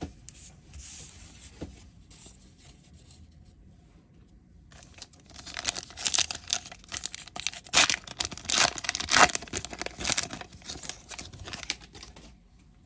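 A MetaZoo Seance booster pack's foil wrapper being torn open and crinkled by hand: faint handling at first, then from about five seconds in a long run of sharp crackling tears and rustles, loudest about two-thirds of the way through, dying away near the end.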